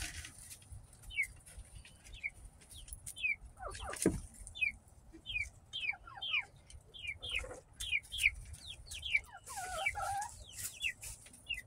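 Birds chirping: a run of short, high, falling chirps, about two a second, with a lower, longer call near the end and a single thump about four seconds in.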